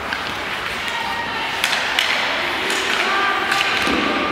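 Ice hockey play in a rink: two sharp stick-and-puck clacks about one and a half to two seconds in, over the steady noise of play and players' voices calling out on the ice.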